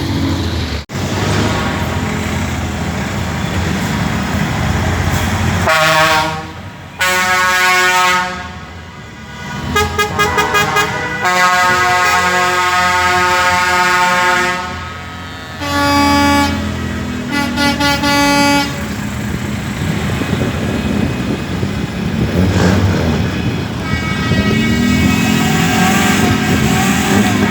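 Truck air horns sounding in a series of long blasts of different pitches, with a run of rapid short toots about ten seconds in, over the steady running of diesel truck engines.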